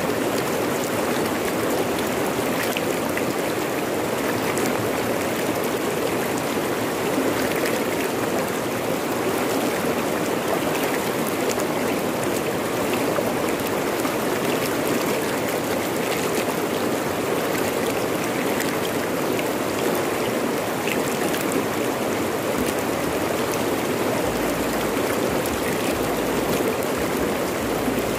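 Fast-flowing river rushing over rocks: a steady, even stream of water noise, with small splashes scattered through it.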